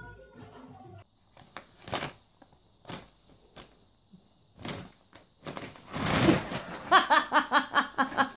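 Paper gift bag and tissue paper rustling and crinkling in short bursts as a cat plays inside it, rising to one loud, longer crackling rush, then a quick run of about ten short pitched sounds near the end.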